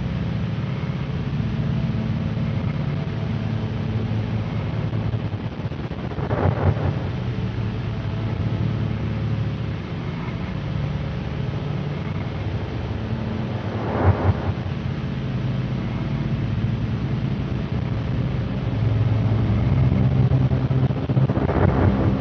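A low, steady droning rumble made of a few held low tones, with a short surge swelling through it about every seven and a half seconds, three times.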